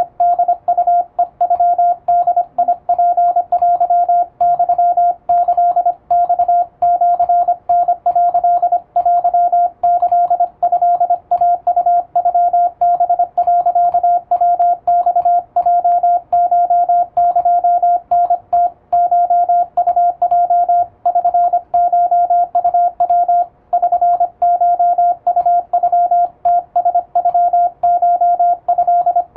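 Japanese Wabun Morse code in plain text, sent with an electronic keyer: a single-pitch sidetone keyed rapidly on and off in dots and dashes, with short gaps between characters and a slightly longer pause about 23 seconds in.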